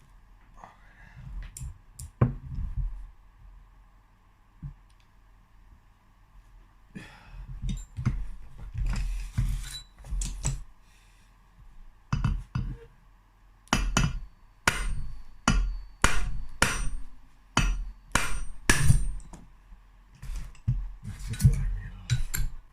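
Hammer and hand tools striking metal parts of a two-stroke motorcycle engine being dismantled: scattered knocks and clinks, then from about halfway a run of sharp blows, roughly one a second, some leaving a brief metallic ring.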